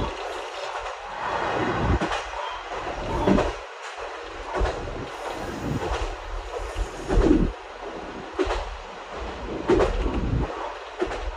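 BEC819 DENCHA battery-electric train running along the track, heard from inside the leading car: a steady rumble of wheels on rail, with a wheel clack over a rail joint about every second and a half.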